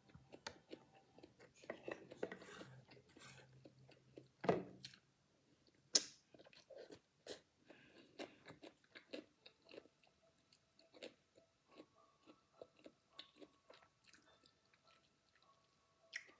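A person chewing food with the mouth closed: an irregular run of soft clicks and smacks, with two louder ones about four and a half and six seconds in.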